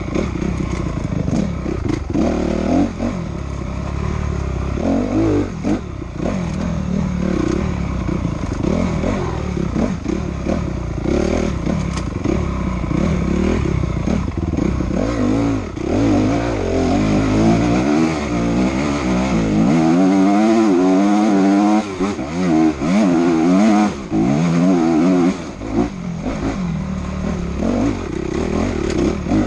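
Enduro motorcycle engine heard close up from on the bike, revving up and falling back again and again as the rider accelerates and shifts along a rough dirt trail, with knocks and clatter from the bike over the bumps.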